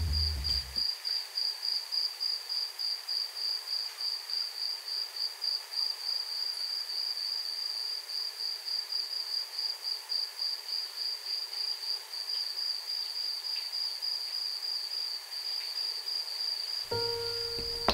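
A cricket chirping: one high note repeated over and over in a quick, even rhythm, over a faint hiss.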